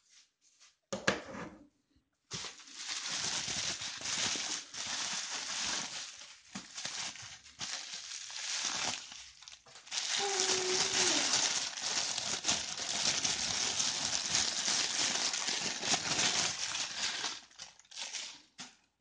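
Packaging wrap crinkling and rustling as it is handled and unwrapped, in long stretches with brief pauses. There is a knock about a second in and a short squeak near the middle.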